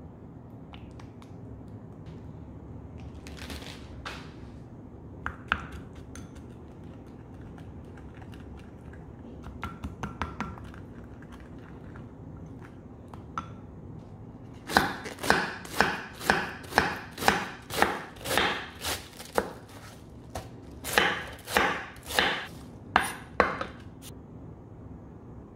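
A wooden spoon stirs sauce in a glass bowl with a few light clicks. About halfway in, a kitchen knife starts chopping cabbage on a wooden cutting board, about two strokes a second, in two runs with a short pause between.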